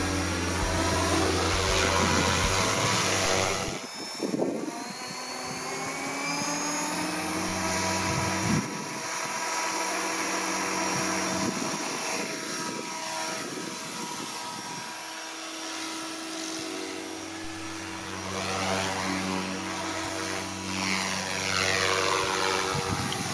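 ALZRC Devil 380 FAST electric RC helicopter in flight: the high whine of its motor and spinning main and tail rotors, its pitch sliding down and up as the helicopter flies past and manoeuvres.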